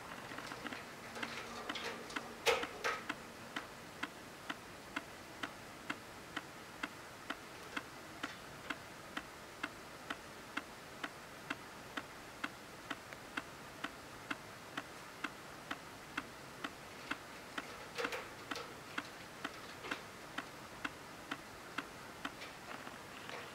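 Steady ticking, a little over two ticks a second, with a few louder clicks and knocks about two seconds in and again around eighteen seconds.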